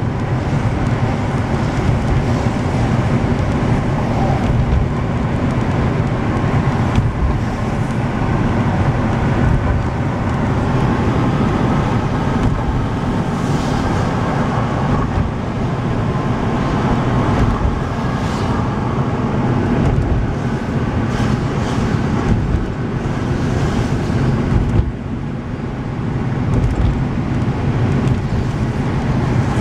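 A vehicle driving at road speed: steady engine and tyre noise with a strong low rumble, easing briefly a few seconds before the end.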